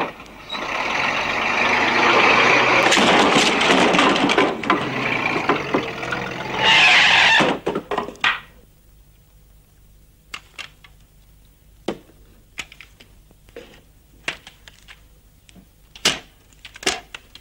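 Truck engine running loudly as the truck drives in, with a sharp louder burst near the end of the run; about eight seconds in it stops. After that, only scattered short clicks and knocks.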